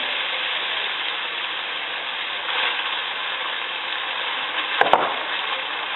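Ground pork frying in oil in a pan, a steady sizzle. A couple of sharp clacks come about five seconds in.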